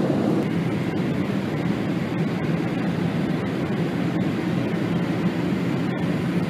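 Steady rushing cabin noise of a jet airliner in flight, engine and airflow noise heard from inside the cabin at a window seat.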